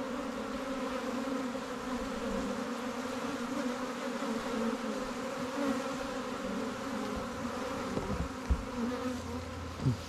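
Steady buzzing of a honey bee swarm: the massed hum of many bees clustered and flying close by.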